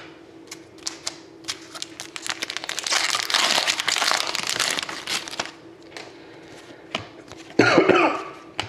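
A wrapper from a pack of hockey cards crinkling and tearing open, densest between about three and five and a half seconds in, with light clicks of cards being handled before it. A brief vocal sound near the end.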